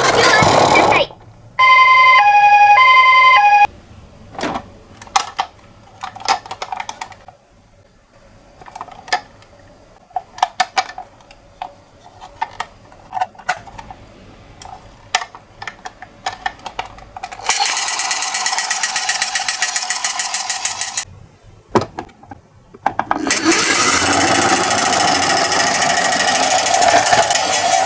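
Toy ambulance's electronic two-tone "pee-po" siren sounding briefly, alternating high and low twice. It is followed by scattered light plastic clicks and taps. Then the miniature ambulance makes a loud, rapid rattling as it rolls down the slope, twice, with a short pause between.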